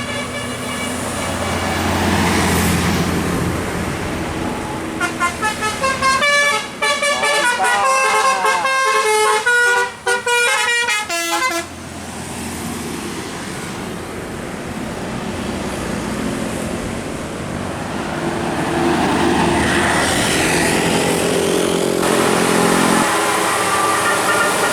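Bus telolet musical air horn playing a quick tune of changing notes for about six seconds, over the bus's running engine. The engine noise carries on before and after the tune and grows louder near the end.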